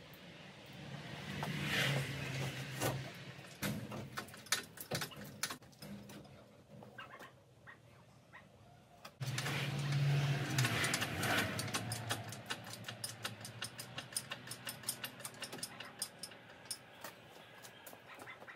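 Workshop tool noise: two short spells of a low motor hum with clatter, scattered metallic clicks and knocks, then a long run of quick, evenly repeated clicks.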